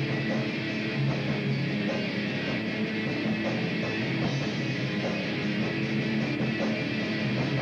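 Heavy metal band playing live, with electric guitars to the fore over drums, steady and unbroken.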